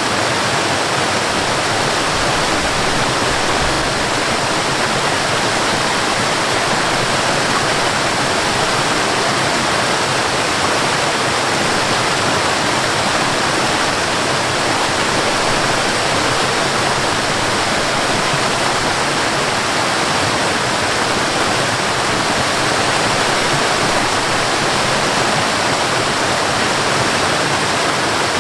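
High waterfall, water falling and crashing in a steady, unbroken rush.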